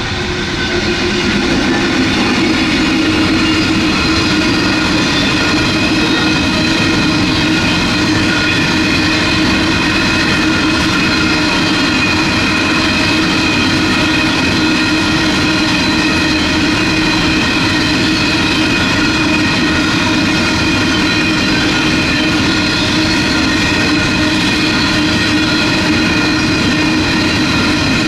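Loaded coal train of hopper wagons rolling past at steady speed: a constant rumble of the wagons with a steady engine hum. It swells over the first couple of seconds as the locomotive arrives, then holds even.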